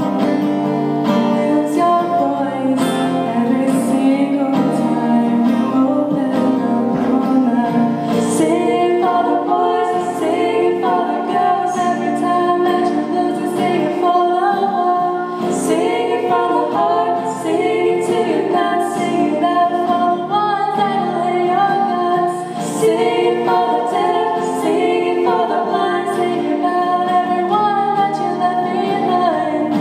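A song: a female voice singing over acoustic guitar accompaniment.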